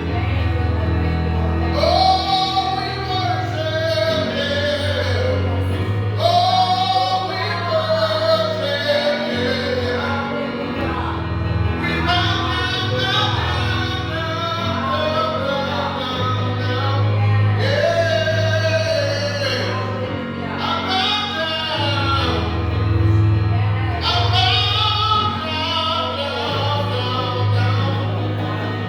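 Gospel song: a voice singing phrases over a band with a steady bass line.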